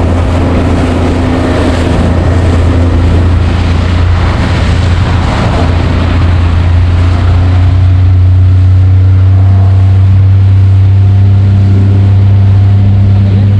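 Boat engine running steadily under way, with water rushing against the hull. The engine gets a little louder about halfway through.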